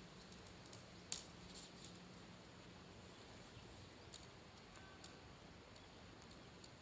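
Near silence, with one sharp click about a second in and a few fainter ticks after it.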